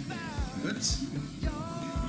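Background pop music with a steady beat of about two drum hits a second and a singing voice.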